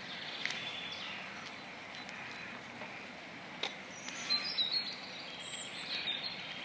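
Steady outdoor background noise with a few short, high bird chirps about two-thirds of the way through, and a couple of faint clicks.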